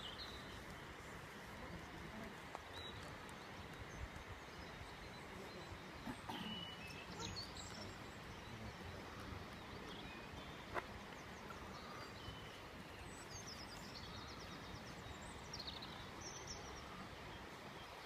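Faint outdoor ambience on a hillside: a low steady rush with scattered short, high-pitched songbird chirps and calls, and one faint click about eleven seconds in.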